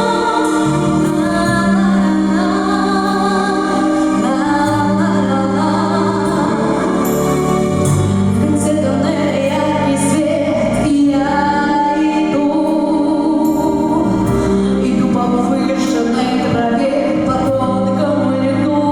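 A song: a woman's voice singing over an instrumental backing track.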